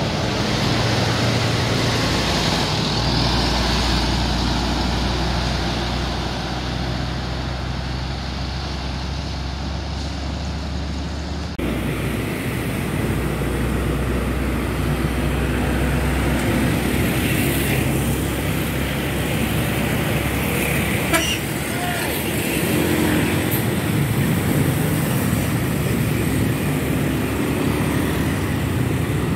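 Highway traffic: a coach's engine droning low as it drives off, then, after an abrupt cut about a third of the way in, trucks, motorcycles and another bus going by.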